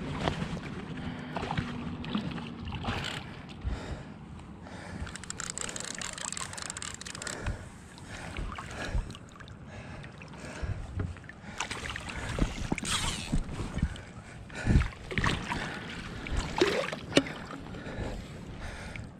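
River water splashing and sloshing as a hooked rainbow trout thrashes at the surface and is played in to a landing net. The splashes come irregularly and are heaviest in the last third.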